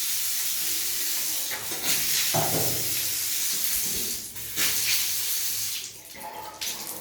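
Water running through newly fitted bathroom plumbing, a steady rushing noise that dips briefly a couple of times.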